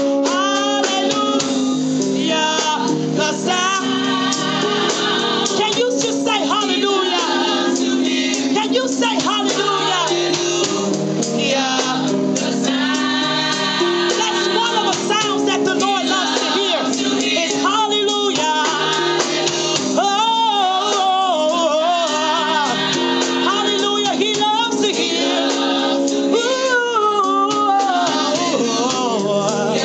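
Gospel praise singing: a lead voice with vibrato over sustained instrumental chords.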